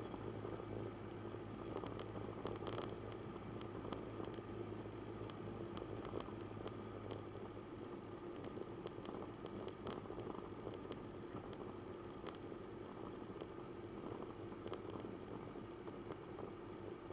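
Piper Cherokee light aircraft's engine and airflow heard from on board as a steady drone with a rushing noise over it; a low hum underneath fades away about two seconds in.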